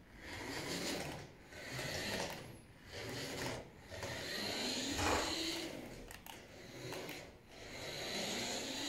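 A toy RC truck's small electric motors and plastic gearbox whirring as it drives, in repeated stretches of a second or two with brief pauses between them.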